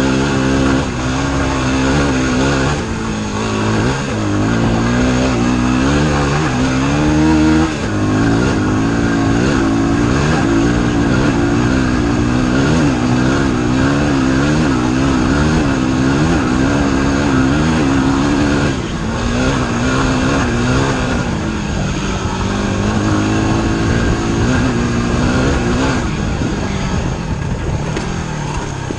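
Yamaha WR250R's 250 cc single-cylinder four-stroke engine being ridden up a gravel trail, on and off the throttle, its pitch rising and falling continually.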